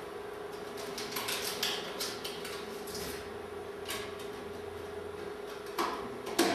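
A steady mechanical hum with scattered light clicks and clatter, and one sharper, louder knock near the end.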